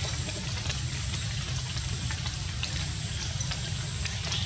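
Steady outdoor background noise: a low rumble with an even hiss above it and a few faint clicks.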